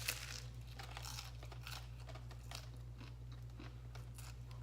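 Close-miked mukbang eating: a person biting and chewing a taco, with irregular crisp crunches and smacking.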